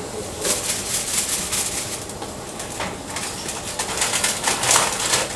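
Eel grilling over charcoal, sizzling in irregular hissing bursts that swell and fade, the loudest near the end.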